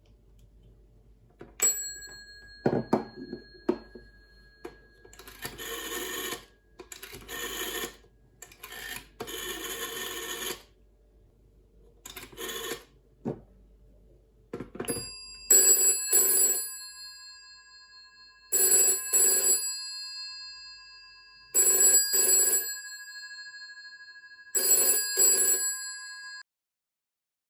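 GPO 706 rotary dial telephone bells ringing in turn: after a few clicks, a rough, buzzy ringing in uneven bursts, then a clear ringing in the British double-ring cadence, four pairs of rings about three seconds apart, with the gongs ringing on between them until it stops suddenly near the end.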